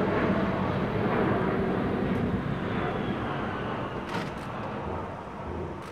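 Antonov An-178 twin-turbofan transport flying overhead, its jet engine roar slowly fading as it draws away.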